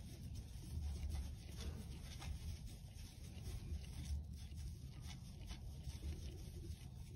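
Wet, soapy makeup sponge being squeezed and rubbed between rubber-gloved hands, giving soft, irregular rubbing and squishing sounds.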